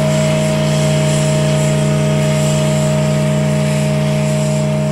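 Factory hooter of twin rooftop whistles sounding one long, loud, steady chord of a deep tone and a higher one.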